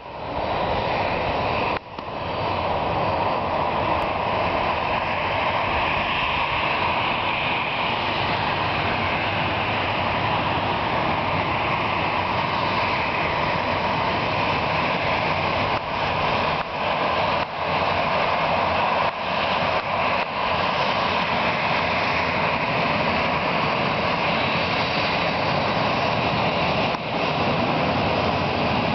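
Boeing 737-500's CFM56-3 turbofan engines running as the jet touches down and rolls out along the runway: a loud, steady jet engine noise, broken by a few brief dropouts.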